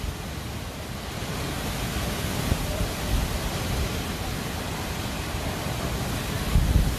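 Strong cyclone wind blowing, a steady rushing noise with low buffeting on the phone's microphone, gusting harder near the end.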